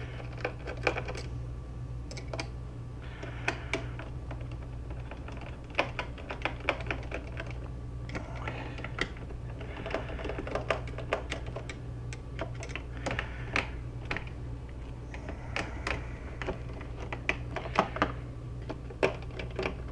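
Small screws being backed out of a computer's kickstand bracket with a hand screwdriver: a string of irregular light clicks and scrapes over a steady low hum.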